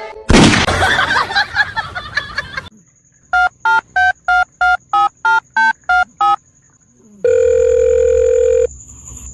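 A loud noisy burst lasting about two seconds, then ten evenly spaced telephone keypad tones, about three a second, as a number is dialed. A steady tone follows for about a second and a half.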